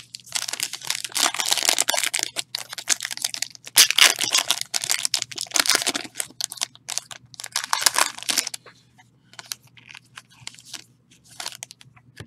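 A foil trading-card pack being torn open and its wrapper crinkled by hand: dense crackling for most of the first eight seconds, then sparser, quieter crinkles.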